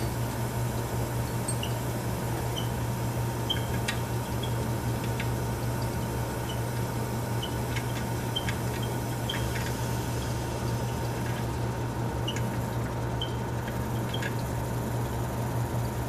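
1931 Frigidaire W-5's belt-driven condensing unit running steadily with a low hum while drawing in refrigerant, with faint short high chirps about once a second from a drive belt that is slipping slightly.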